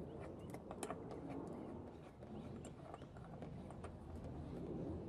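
Faint scattered clicks and taps of a hand screwing a washer and back bolt onto a spigot fitting inside a plastic trash can.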